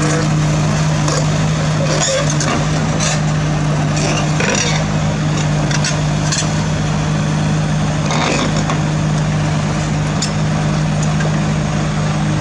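Large diesel engine of heavy equipment running steadily at an even pitch, with occasional short knocks over it.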